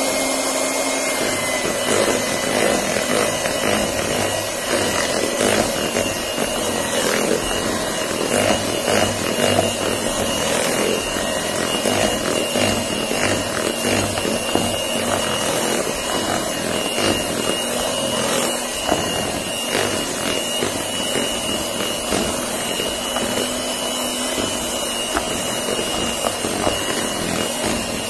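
Electric hand mixer running steadily, its beaters whipping buttercream in a plastic bowl, with a constant high motor whine and frequent clicks of the beaters knocking against the bowl.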